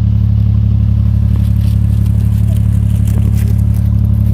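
Canal hire boat's engine running steadily under way, a loud, even low hum.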